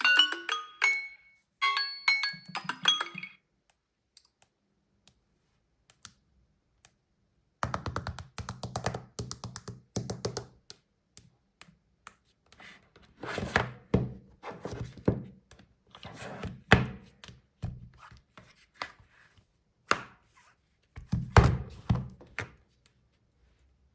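Smartphone ringtone playing a bright mallet-like melody that stops about three seconds in. After a few seconds of quiet, irregular clusters of taps and thunks follow.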